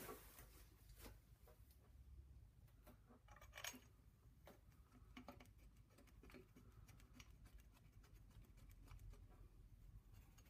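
Faint, scattered metallic clicks and taps of water pump bolts being threaded in by hand and the pump being handled against the engine block, over near silence.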